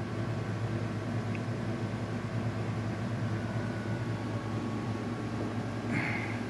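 Steady low machine hum with a hiss over it, room background noise, with a brief higher-pitched rasp about six seconds in.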